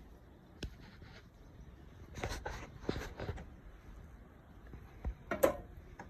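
Footsteps and knocks on the folding metal entry steps and floor of a travel trailer, a cluster of thumps about two to three seconds in, then a sharp click near the end.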